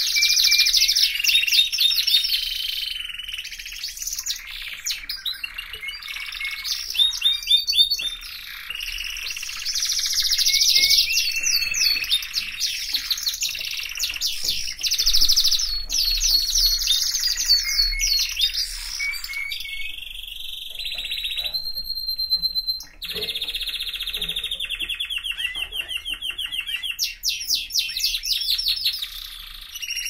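Domestic canary singing a long, unbroken song of fast trills and rolls, with one held whistled note about three-quarters of the way through.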